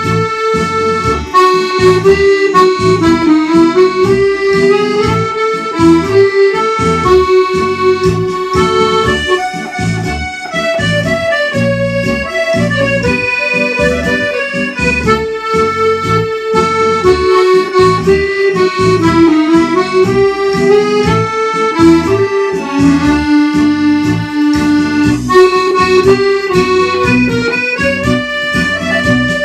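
Accordion playing a waltz-like tune: a melody in held, reedy notes over a steady oom-pah pulse of bass notes and chords.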